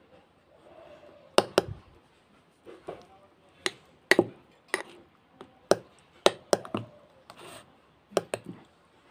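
Metal spoon stirring thick mashed-banana paste in a glass bowl, clinking against the glass about a dozen times at irregular moments, often in quick pairs.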